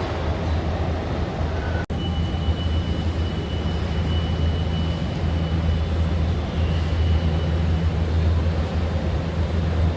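Steady low hum of car-factory floor machinery and ventilation. It cuts out for an instant about two seconds in, then a thin high whine sounds for several seconds.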